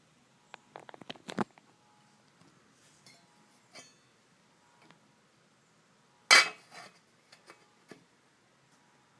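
Hard objects clinking and knocking: a quick run of sharp clicks about a second in, one loud sharp clink a little past the middle, then a few faint taps.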